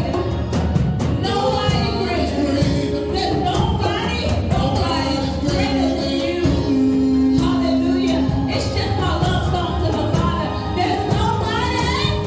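Church worship music with singing over a full band, with one long held note about halfway through.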